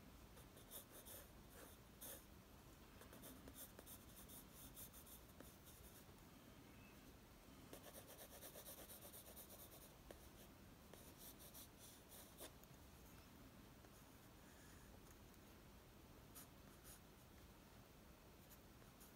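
Faint scratching of a Staedtler Mars ergosoft graphite pencil on paper, in quick short sketching strokes, with a longer run of continuous hatching about eight seconds in and only a few strokes in the last few seconds.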